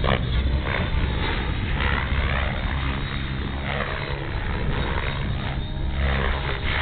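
Blade 700X electric RC helicopter flying 3D manoeuvres: its rotor and motor noise runs steadily, with the pitch of the rotor sound gliding up and down as it turns and changes speed.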